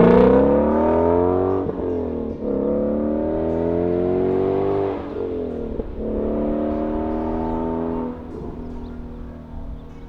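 Shelby GT350's 5.2-litre flat-plane-crank V8, breathing through a Corsa X-pipe resonator delete, accelerating hard through the gears: the engine note climbs, breaks for an upshift at about two seconds and again at about five, climbs again, and fades near the end as the car pulls away.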